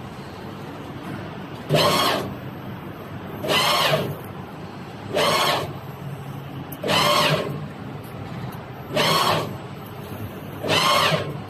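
CNC press brake running with a steady low hum, broken six times by a short, loud mechanical whirr, about one every two seconds, each sweeping in pitch.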